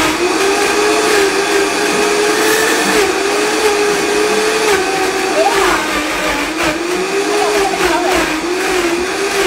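High-powered countertop blender running on frozen fruit, with the tamper pushing the thick mix down into the blades. The motor's whine wavers and dips in pitch a few times as the frozen load drags on it, then recovers.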